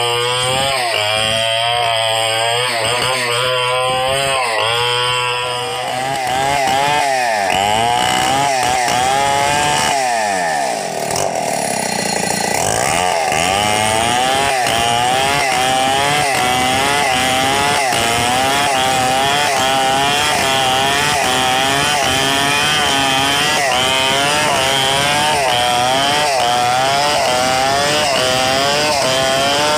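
Stihl 070 two-stroke chainsaw running at full throttle while ripping a log lengthwise into planks, its engine pitch wavering up and down under load. About ten seconds in, the revs drop briefly and then climb back up.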